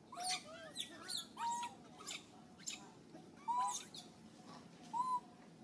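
Baby long-tailed macaques giving a string of about ten short, high-pitched squeals and coos, scattered irregularly, some with a shrill, squeaky edge.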